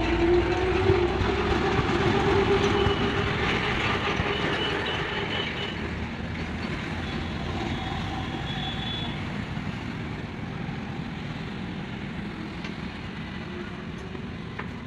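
A large vehicle rumbling with a steady low tone. It is loudest in the first few seconds, then fades gradually as it moves away.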